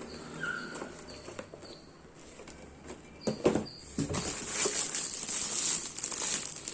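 Packaging being handled during an unboxing: light clicks and rustling at first, then louder, steady crinkling from about four seconds in.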